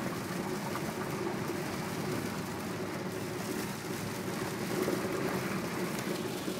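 Car engine running steadily under a constant rushing noise, heard from inside the cabin while the car drives through deep floodwater.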